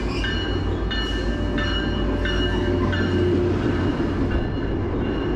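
Diesel-hauled Tri-Rail double-deck commuter train pulling in along the platform: a steady low rumble of the train and its wheels, with high thin squealing tones that come and go.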